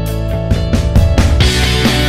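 Background rock music with guitar; about half a second in, drums come in and the music grows louder and fuller.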